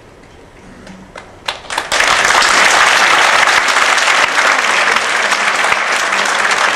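Audience applause: a few scattered claps about a second and a half in, then a loud burst of many hands clapping that keeps going.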